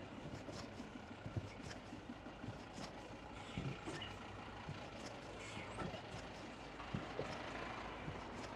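City street ambience: a steady wash of road traffic noise, with scattered short knocks.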